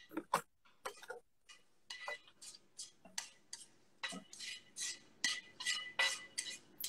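Kitchenware clinking and scraping as sautéed onions are scraped out of a pan onto flaked salt cod in a clay dish: a run of short, irregular clinks and scrapes, about three a second.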